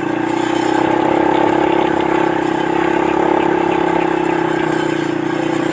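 A motor vehicle's engine running steadily at an even pitch, pulling up a climbing road.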